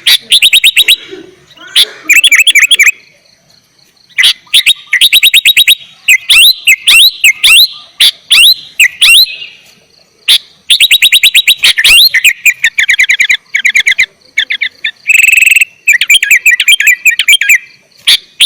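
Sooty-headed bulbul (kutilang) singing loudly in rapid bursts of fast repeated chattering notes, with short pauses between phrases and one short steady high note near the end.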